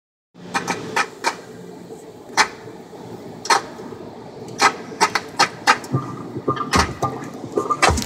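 Automatic tunnel car wash heard from inside the car: steady hum of machinery and water spray, with sharp irregular clicks about once a second that come more often in the second half.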